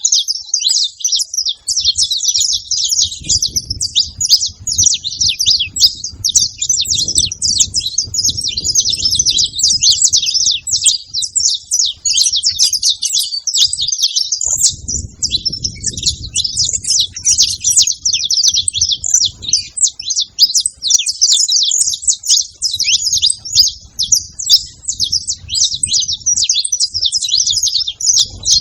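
Saffron finches chirping in a dense, unbroken stream of rapid high-pitched notes, with a low rumble coming and going underneath.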